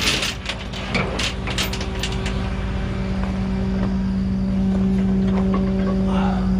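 A vehicle engine running steadily close by, a constant hum over a low rumble that grows a little louder about four seconds in, with a few short clicks and knocks in the first second.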